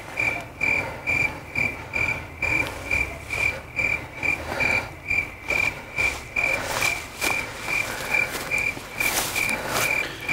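Night-time animal chirping: short chirps at one high pitch, evenly spaced at about two a second, with brief rustles around seven and nine seconds in.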